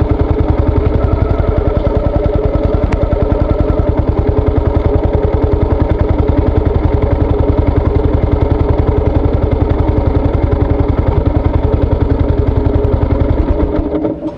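Yamaha SR400's single-cylinder four-stroke engine running with a steady, even, rapid beat, which dies away near the end.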